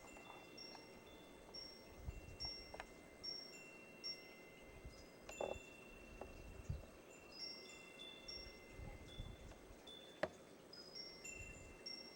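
Faint tinkling of chimes: scattered high ringing notes of several pitches overlapping and fading away, with a few soft knocks about three, five and ten seconds in.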